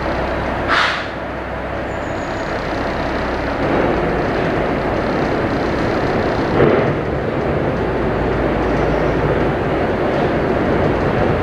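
Sightseeing boat's engine running with the rush of water along the hull; about three and a half seconds in the engine note changes and gets louder as the boat comes in to the pier. A short hiss about a second in.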